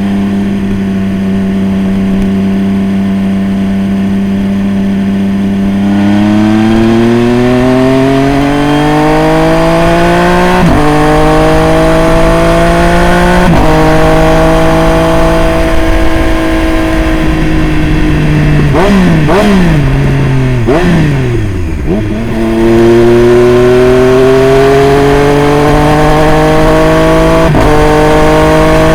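Triumph Street Triple RS three-cylinder engine through a Jeskap full aftermarket exhaust, ridden on the road. It holds steady revs at first, then accelerates with the pitch climbing and dropping sharply at each upshift. About two-thirds in, the revs fall in a few quick steps as it changes down, then it accelerates through the gears again.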